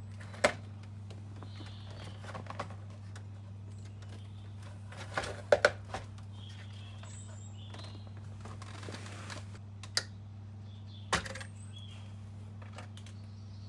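Porsche Cayman S plastic dashboard knocking and clicking as it is worked free of its mounting points and lifted out of the car, with a close pair of loud knocks about halfway through and a brief scrape a little after. A steady low hum runs underneath.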